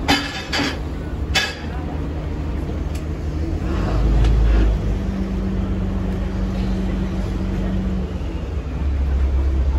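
Boat engine running with a steady low rumble, with a few sharp knocks in the first second and a half and a steady hum for a few seconds in the middle.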